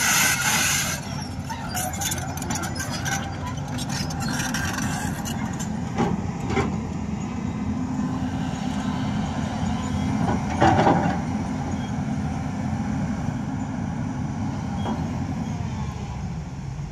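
Heavy diesel construction machinery running steadily, with a hiss in the first second and a few knocks, the loudest about eleven seconds in.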